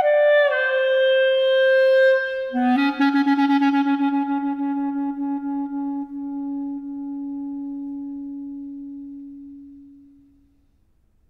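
Solo clarinet playing contemporary classical music. A high note slides down and holds. A lower note then enters with rapid pulsing, about four times a second, before being held and slowly fading away into silence.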